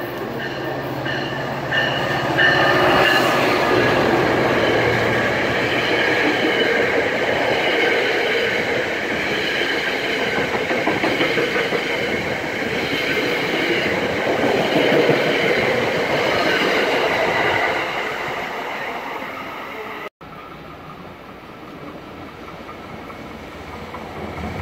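Passenger train rolling past close by at a station: locomotive and coaches with wheel clatter and steady squealing tones. The sound fades after about 18 s. A sudden cut brings in a quieter second train approaching, growing louder near the end.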